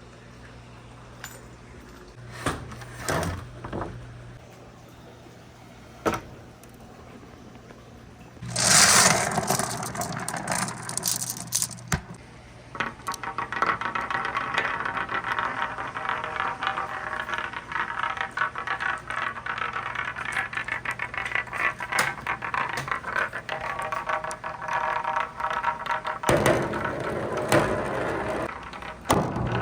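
Marbles on a wooden marble run: separate clicks and clacks on the wooden track, a louder clattering burst about nine seconds in, then a long steady rolling rattle with a ringing tone from about thirteen seconds that stops near the end.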